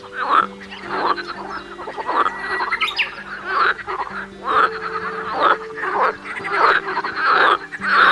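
A frog croaking over and over, about one and a half calls a second, over soft background music.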